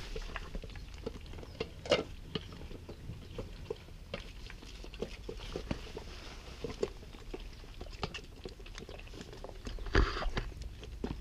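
Five-month-old cheetah cubs eating from food bowls: a steady run of wet smacking, lapping and chewing clicks. A couple of louder knocks come about two seconds in and near the end.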